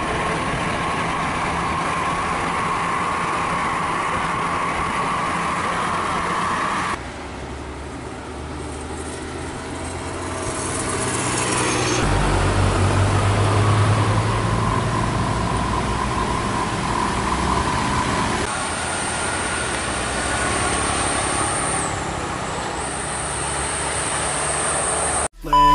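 Intercity diesel coach buses and a truck passing on the road with their engines running, among motorcycles. The sound changes abruptly about 7 and 12 seconds in, with a deep engine hum strongest around 13 to 14 seconds, and cuts out suddenly just before the end.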